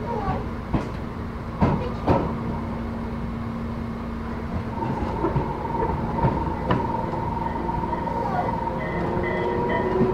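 Tobu 10030 series electric train running, heard from inside the car: a steady whine from its chopper control, held tones with a higher one joining in the second half. Wheels clack sharply over rail joints a few times, early on and again around the middle.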